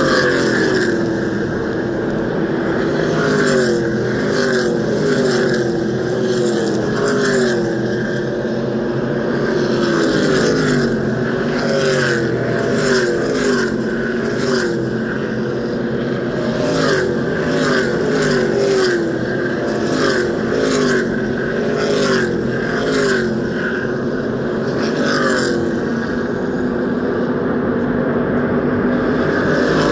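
NASCAR stock cars' V8 engines at racing speed passing one after another in a continuous stream, roughly a car a second, each engine note dropping in pitch as the car goes by.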